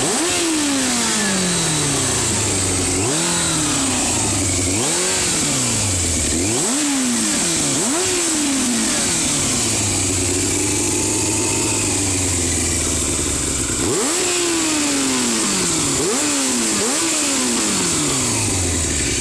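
Yamaha Thundercat's inline-four engine blipped repeatedly at a standstill through a Scorpion silencer with its baffle removed: the revs snap up and fall back about ten times, with a spell of steadier running in the middle.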